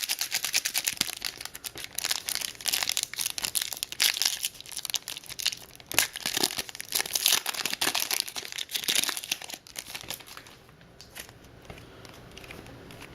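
Trading-card pack wrapper being torn open and crinkled by hand, a dense crackling with sharp snaps that stops about ten seconds in.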